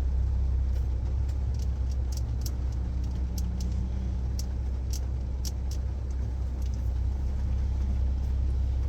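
Car engine idling, heard from inside the cabin as a steady low hum, with scattered light ticks of rain on the car.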